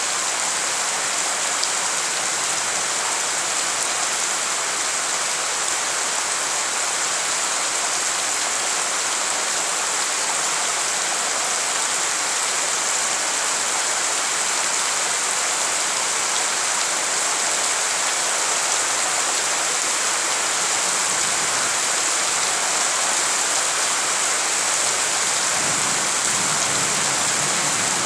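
Heavy rain falling steadily onto a flooded yard and surrounding foliage, a constant even hiss of drops splashing into standing water.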